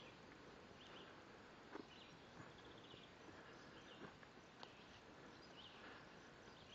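Near silence: faint outdoor ambience with soft, scattered chirps and a few light ticks.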